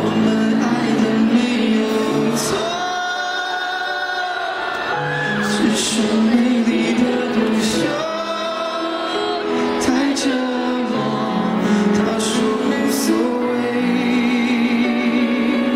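Male pop singer singing a ballad live into a handheld microphone over band accompaniment, with held, gliding sung notes over a steady bass line.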